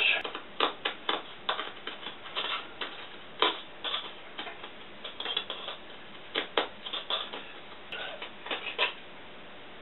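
Irregular metallic clicks and scrapes of a hand tool working the cut lip of a tin can, bending the thin edge upward. The clicking stops near the end.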